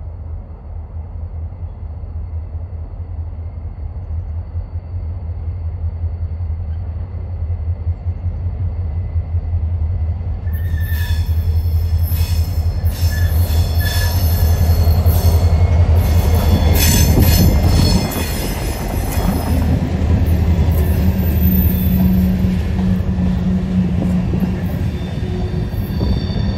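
CSX freight train's diesel locomotives running closer with a low rumble that grows steadily louder, loudest as they pass. From about ten seconds in, steel wheels squeal on the curve, high and ringing, continuing as the freight cars roll by.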